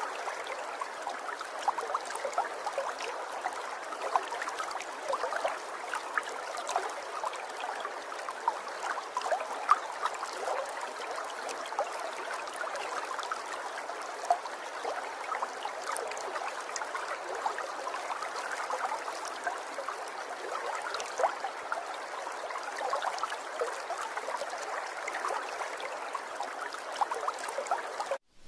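Steady babbling, trickling water, like a small stream, with many small bubbling ticks over an even rush. It cuts off abruptly near the end.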